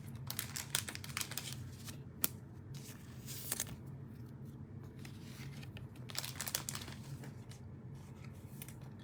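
Faint crinkling and tearing of a cellophane-wrapped trading card pack being opened and handled, in short scattered rustles.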